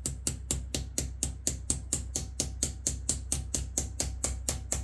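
Background music with a fast, even beat of ticking percussion, about five ticks a second, over a steady low bass.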